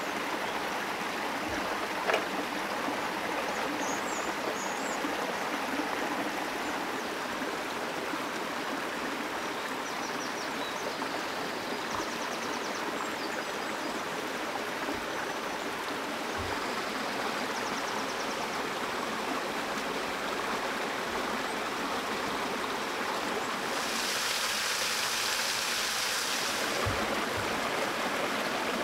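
A forest stream running steadily, a constant rush of water. A few faint knocks on the wooden cutting board come through it, and a short, brighter hiss rises briefly near the end.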